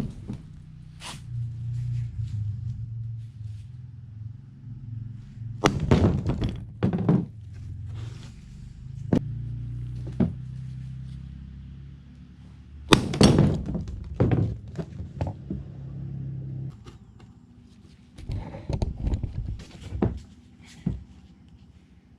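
Sledgehammer blows on a lug nut threaded onto a wheel stud, metal on metal, hammering the stud out of a Nissan Sentra's hub flange. Repeated sharp strikes come in groups with pauses between as the stud is driven out.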